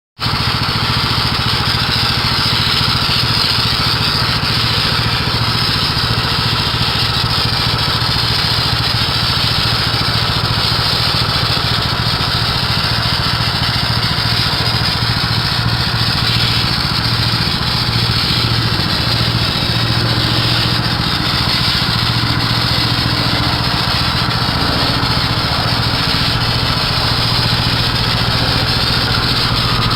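A small gasoline engine running steadily at a constant speed. It cuts in suddenly at the very start.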